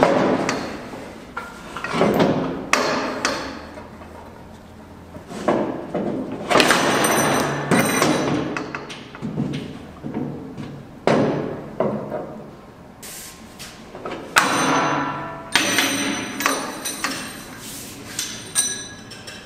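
Hammer blows on metal, irregular, about one every second or two, each with a short metallic ring.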